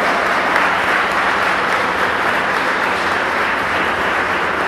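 Audience applauding: steady, dense clapping that eases off slightly toward the end.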